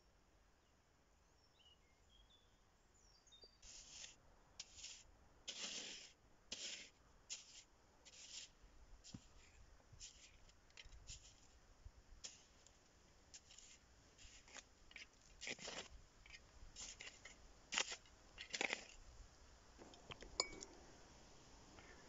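Short, irregular scrapes and rustles in sandy soil and dry debris, about one or two a second, starting a few seconds in after near silence.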